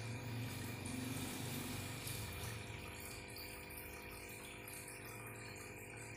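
Aquarium running: a stream of air bubbles and the water moved by a submersible filter pump, an even bubbling wash over the pump's steady hum, a little louder in the first couple of seconds.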